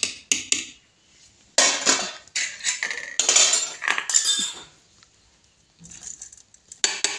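Steel ladle clinking and scraping against a steel pot while boiling sago is stirred. It comes in bouts: a few quick clinks at the start, a longer run of scraping and clatter from about two to four and a half seconds in, then more clinking near the end.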